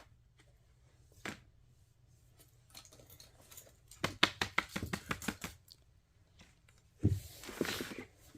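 Plastic fidget toy being clicked: a couple of single clicks, then a quick run of about a dozen clicks at roughly eight a second, and a short rustle of handling near the end.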